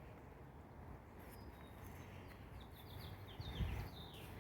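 Outdoor ambience with a low steady rumble. A songbird sings a quick series of short, falling chirps in the second half. There is a brief low thump about three and a half seconds in.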